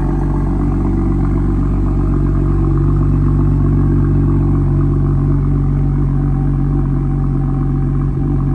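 BMW M2's turbocharged straight-six idling steadily, heard from behind the car at its quad exhaust tips.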